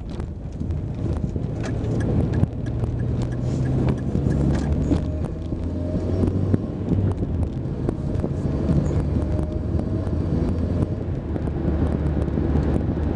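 Passenger car's engine and tyre noise heard from inside the cabin, a steady low rumble as the car pulls away and drives on, with the engine note shifting in pitch a few times.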